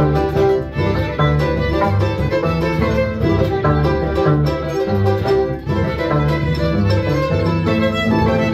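Andean harp and violin playing an instrumental tune together: the violin carries the melody while the harp plucks a steady pattern of deep bass notes and chords underneath.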